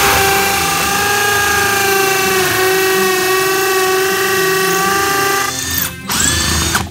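Tonfon 20V cordless hammer drill running under load, drilling a dowel hole through PVC panelling into a concrete wall, with a steady motor whine. It stops about five and a half seconds in, then spins up again briefly near the end, rising in pitch.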